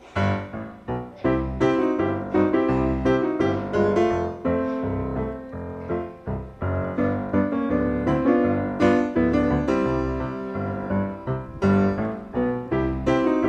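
Background piano music with many struck notes.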